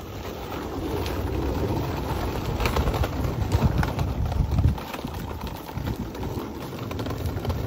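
Low rumble with a run of quick, irregular footsteps on a paved path, loudest for about two seconds in the middle, with knocks from the phone being carried and swung about.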